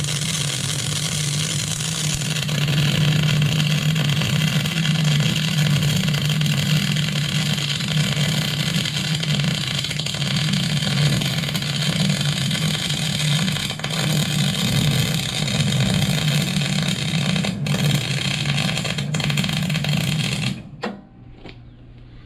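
Miller Millermatic 252 MIG welder arc laying one long continuous bead on a steel hitch plate: a steady, even hiss with a low buzz underneath, cutting off suddenly near the end. The welder judges it one of the best welds he has put down with this machine.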